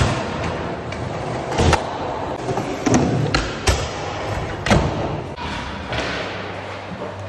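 Skateboard wheels rolling over ramp surfaces, broken by a series of sharp thuds and clacks as the board hits and lands on the ramps and ledge. The loudest come a little under two seconds in and near the five-second mark.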